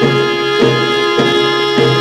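Instrumental music with a steady beat: a low bass note and a chord struck together about every 0.6 seconds.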